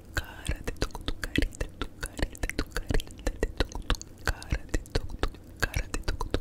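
Close-miked ASMR trigger sounds: fast, irregular crisp clicks and crackles, several a second, right at a sensitive microphone, with a faint whisper-like breath now and then.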